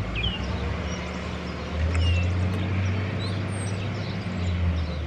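A steady low mechanical hum, like a motor or engine running, that grows louder about two seconds in, with birds chirping now and then.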